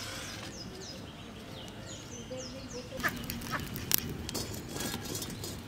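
Small birds chirping in a run of short, high, falling calls, then two sharp knocks about three and four seconds in as a metal kadai is set onto a clay wood-fired stove.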